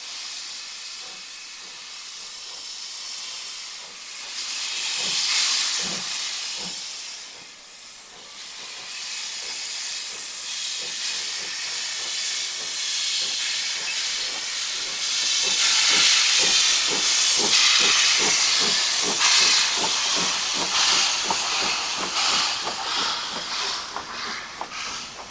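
Steam locomotive 140 C 27 pulling away with its train. There is a steady hiss of escaping steam, with chuffing exhaust beats that come faster as it gathers speed. The train is loudest as the locomotive and coaches pass close by.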